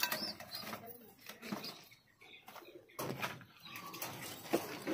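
Domestic pigeons in wire cages cooing and stirring, with a couple of sharp knocks about three seconds in and again near the end.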